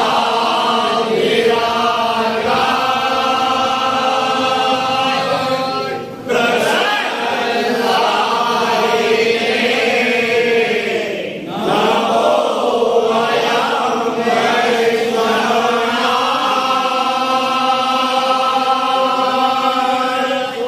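A group of men and boys chanting a devotional hymn to Shiva in unison, on long held notes. There are brief pauses about six and eleven seconds in.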